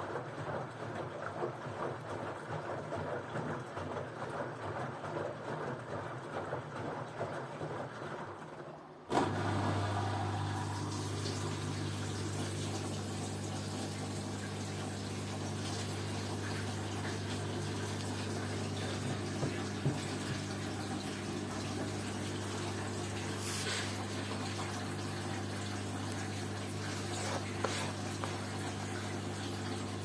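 Water swishing in the drum of an LG Direct Drive front-loading washing machine; about nine seconds in, the drain pump switches on abruptly with a steady low hum and rushing water as the drum empties.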